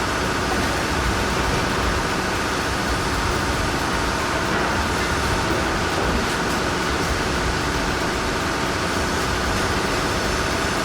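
Heavy machinery running: a steady, unbroken engine drone with rumble, and no change in pitch or load.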